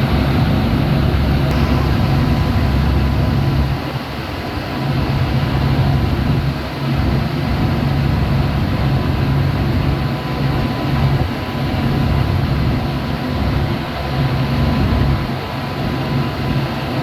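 Tour boat's engine droning steadily, a constant low hum mixed with the rush of sea water.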